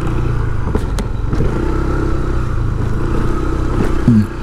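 Motorcycle engine running steadily at low, even revs.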